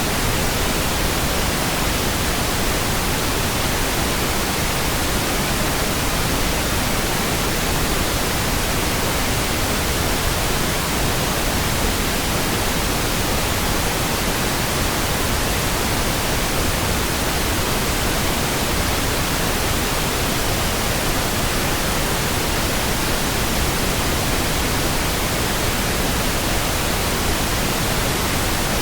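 Steady synthetic pink noise: an even, unchanging hiss that covers the whole range, with no rhythm or sudden sounds.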